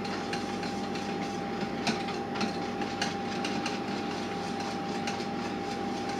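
Wire whisk stirring a thick barbecue sauce in a stainless steel bowl, with scattered light clicks of the whisk against the metal, over a steady background hum.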